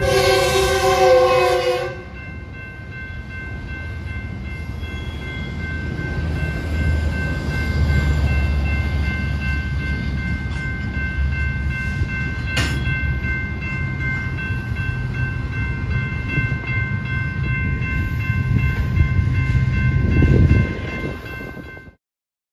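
Double-stack intermodal freight train rolling by with a steady low rumble of the wagons. A train horn sounds for about two seconds at the start, and a grade-crossing bell rings as steady high tones throughout. One sharp clank comes a little past halfway, and the sound cuts off suddenly just before the end.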